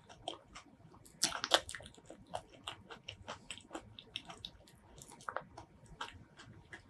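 Close-miked chewing of soft durian flesh: many short mouth clicks and smacks, with a louder cluster about a second and a half in.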